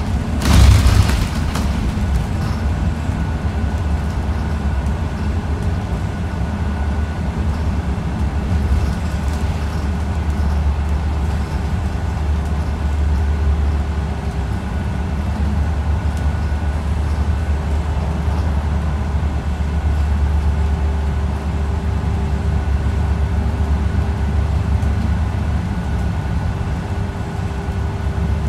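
City bus running, heard from inside the passenger cabin: a steady low engine and road rumble with a faint steady whine. A loud knock lasting under a second comes about half a second in.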